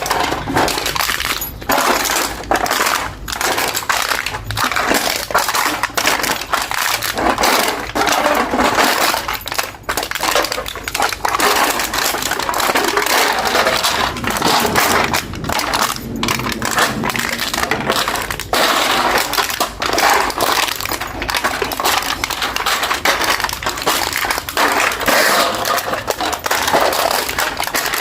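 Aluminium beer can being crushed and crumpled by hand: continuous metallic crinkling and crackling with dense clicks, running without a break.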